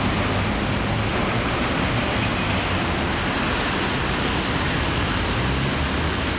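Steady rush of street traffic, cars and tyres passing on the road, an even noise with no single sound standing out.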